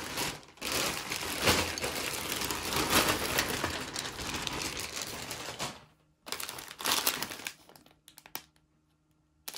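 Plastic Lego minifigure blind-bag packets crinkling as they are handled. The crinkling runs for about five seconds, stops briefly, then comes again in a shorter bout, followed by a few light clicks.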